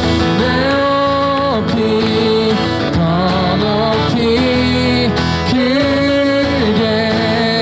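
A live worship band playing an upbeat praise song between sung lines: guitar under melody notes that are held and slide from one pitch to the next.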